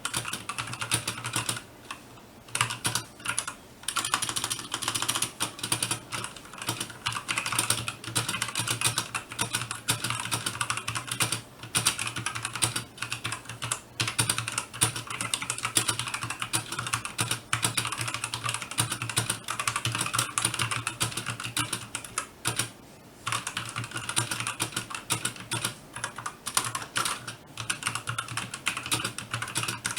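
Typing on an RK61 mechanical keyboard with tactile brown switches: a fast, continuous run of keystroke clicks, with a few brief pauses.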